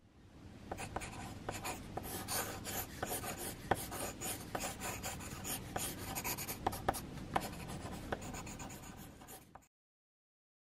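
Hand-drawn strokes scratching across a sheet of paper, with frequent sharp ticks of the drawing tip on the page. It fades in at the start and cuts off suddenly near the end.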